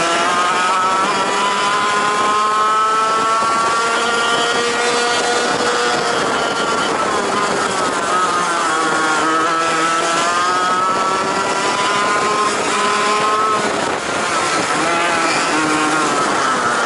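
Racing kart engine heard from onboard at full race pace, its pitch climbing steadily as it accelerates, then dropping as it slows for corners about seven seconds in and again near the end. Other karts' engines run close alongside.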